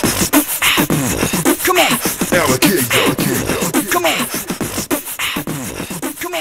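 Hip-hop music with a steady beat and a voice, with a bright hit about once a second, fading out toward the end.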